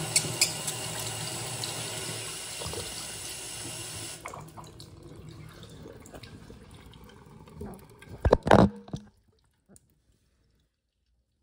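Miniature Saxonette toilet flushing, water rushing and swirling through its small bowl, falling after about four seconds to a faint trickle and drips into the sink below. Two loud knocks a little past eight seconds, then it cuts to silence.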